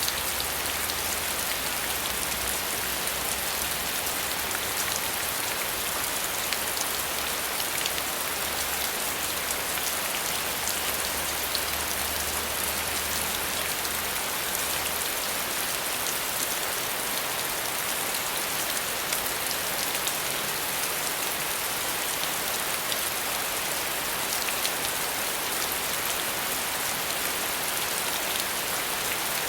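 Steady rain falling, a dense even hiss with many fine drop taps.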